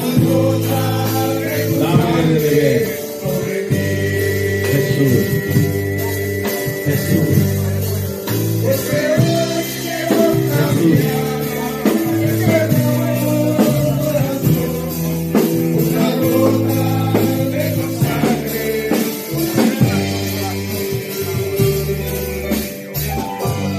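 Slow worship music: a voice singing over long held chords that change every couple of seconds.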